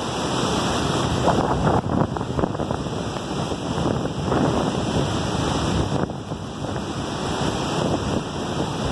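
Steady loud rush of a waterfall and the whitewater rapids below it, with wind buffeting the microphone now and then.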